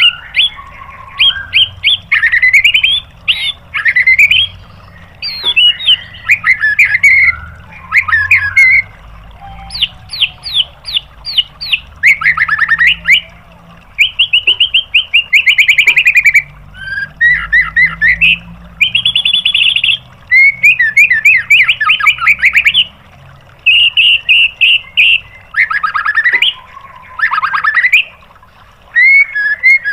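White-rumped shama (murai batu) singing loudly and continuously: phrase after phrase of fast repeated notes, trills and sweeping whistles, broken by short pauses. These are the rapid-fire "tembakan" phrases that bird keepers prize.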